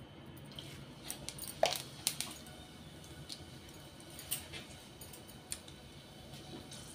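Tempering in hot oil in an aluminium kadhai as cumin seeds, dried red chillies and a bay leaf are dropped in. It is faint, with scattered small crackles and ticks; the loudest come about a second and a half to two seconds in.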